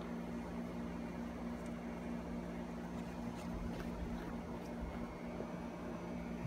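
Steady room noise: a constant low electrical hum over an even hiss, like a fan or building ventilation, with a few faint light ticks about halfway through.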